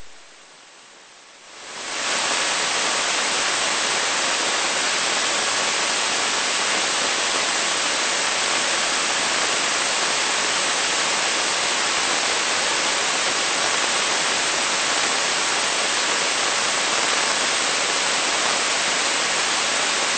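Steady, even hiss of static white noise, fading in over the first two seconds and then holding level without change.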